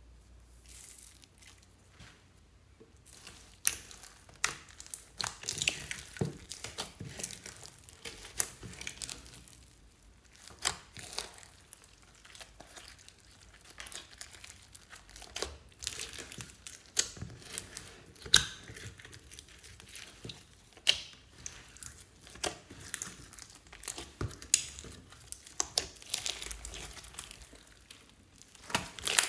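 Clear slime loaded with foam beads and glitter being squeezed, kneaded and stretched by hand, giving a dense run of irregular sticky crackles and pops. It starts about three seconds in, after a quieter opening.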